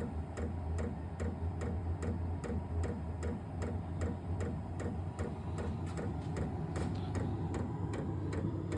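Diesel heater fuel dosing pump ticking steadily, about three clicks a second, as it meters fuel into the combustion chamber during start-up, over a steady low hum.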